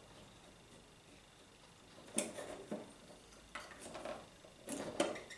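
Small clicks and knocks of parts of a Philips record player being handled, about six short taps and rattles starting about two seconds in.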